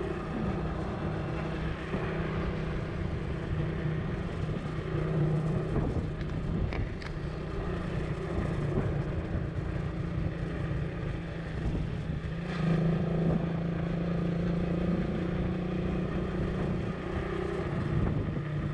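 A motor vehicle's engine running steadily on the move, with wind and road noise. Its hum shifts slightly in pitch a few times.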